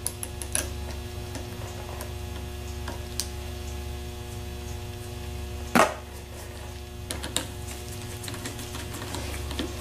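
Small metal clicks and taps from brush-holder parts, the leads and the brush of a Delco 37MT starter being handled and fitted, with one sharper click about six seconds in. A steady low hum runs underneath.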